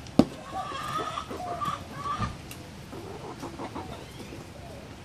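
Chickens clucking as they feed. There is one sharp knock just after the start, and the calls are busiest in the first couple of seconds.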